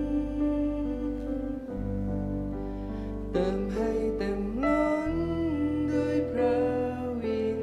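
Soft live worship music: sustained keyboard chords over long, low bass notes, with a man singing over them from about three seconds in.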